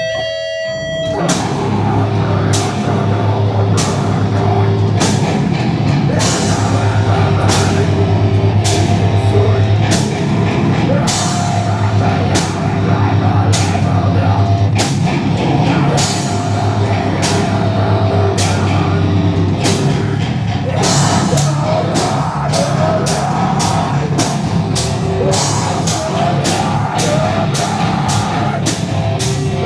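Metal band playing live, with heavy guitars and a drum kit. The full band comes in about a second in, and the drums switch to a much faster beat about two-thirds of the way through.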